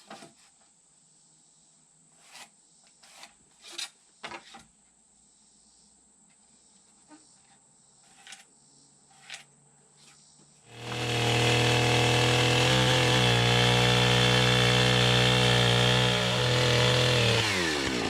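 A few light knocks of wood being handled, then about ten seconds in a gas chainsaw starts running hard at steady high revs, cutting off a short length of timber; near the end the revs drop away as the throttle is released.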